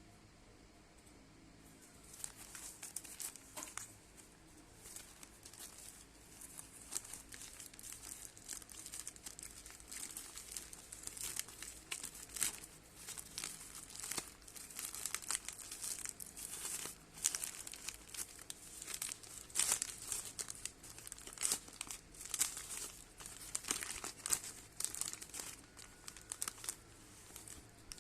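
Plastic packaging crinkling and rustling as a parcel is unwrapped by hand, in many short crackles that start about two seconds in.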